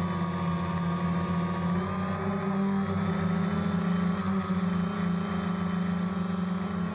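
DJI Phantom quadcopter's motors and propellers whirring steadily close to the on-board camera, their pitch shifting slightly as the drone adjusts its flight.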